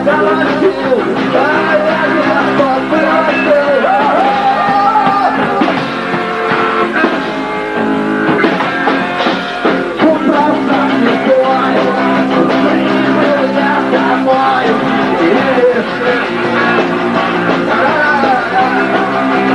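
Punk rock band playing live: guitars and drums with a male voice singing.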